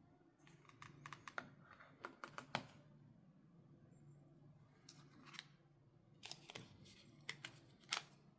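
Light clicks and taps of hands handling a new phone and its packaging, coming in irregular clusters with a few sharper knocks near the end.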